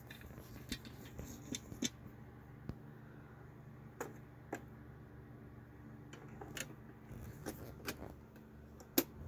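Scattered plastic clicks and taps, a dozen or so, from a clock radio with a cassette deck being handled, the loudest click near the end, over a low steady hum.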